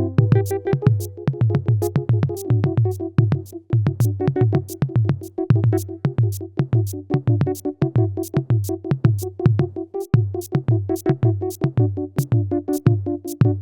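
Electronic music composed in GarageBand: a drum-machine beat of about four sharp hits a second over a repeating low bass pulse and a steady held synthesizer note.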